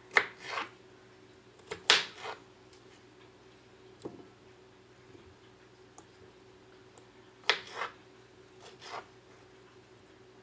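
A kitchen knife slicing through a cucumber and knocking on a cutting board. There are three groups of sharp knocks, each a strike followed by a softer one: at the start, about two seconds in, and about seven and a half seconds in.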